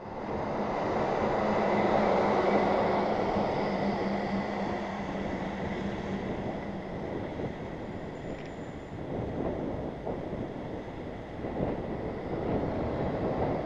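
Road traffic and wind noise picked up by a bike-mounted action camera while riding in traffic, with a steady engine hum through the first half.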